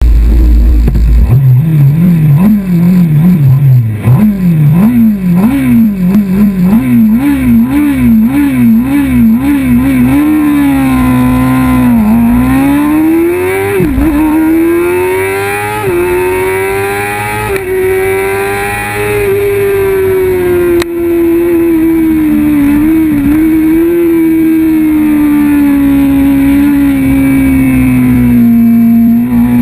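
Kawasaki ZX-6R 636 inline-four race engine revved up and down in quick repeated blips, then accelerating hard from about ten seconds in, its pitch climbing and dropping back at three upshifts. After that it runs at steady high revs among other racing motorcycles.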